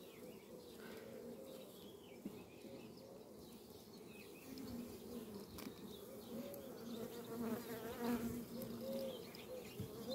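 Honeybee colony buzzing in an opened hive: a steady hum, with single bees now and then droning close past, their pitch rising and falling.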